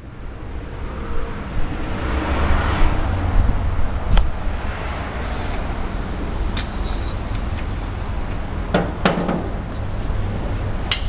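Steady low workshop rumble with a few sharp knocks and clatters as a hydraulic ram and its hose are picked up and handled.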